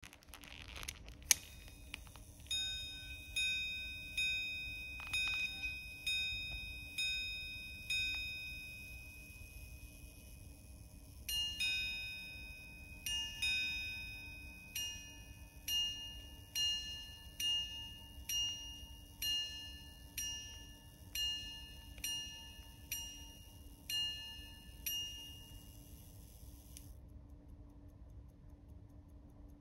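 A 14K gold repeater pocket watch chiming the time on its gongs. A sharp click comes about a second in. Then comes a run of single ringing strikes, about one a second. After a pause, a second, longer run of strikes follows, and each strike rings on and fades.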